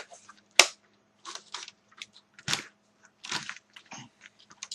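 Irregular clicks and scrapes of plastic laptop parts and tools being handled during disassembly, with one sharp click about half a second in.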